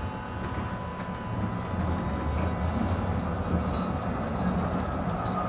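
Electric tram running, heard from inside the passenger car: a low rumble of wheels on rails with a thin, steady whine. The rumble grows louder about a second and a half in.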